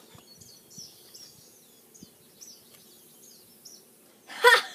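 Small birds chirping repeatedly in the background over a quiet yard, with a few faint ticks. Just before the end, a person's voice breaks in briefly and loudly.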